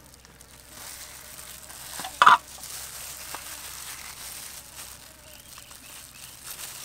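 Soft handling sounds of gloved hands pulling apart and peeling jackfruit bulbs with knives over a steel tray, with faint crinkling and ticks. One short sharp sound stands out a little over two seconds in.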